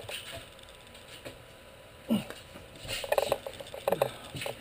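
Workshop handling noises from work on a glued plywood panel: a single knock about two seconds in, then two short bursts of quick clicks and rattles about a second apart.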